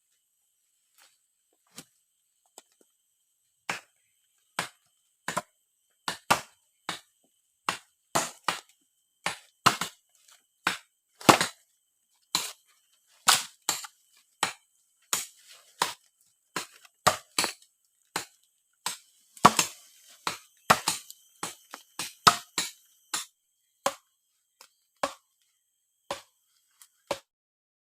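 A long series of sharp knocks or chopping strikes, irregular, about one to two a second, loudest through the middle and thinning out near the end.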